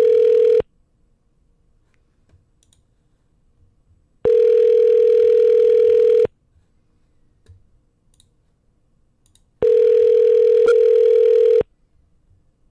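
Telephone ringback tone heard over the line while the called phone rings unanswered: a steady tone about two seconds long, repeating every six seconds with silence between, in the North American ring cadence. One ring ends just after the start, then two more full rings follow.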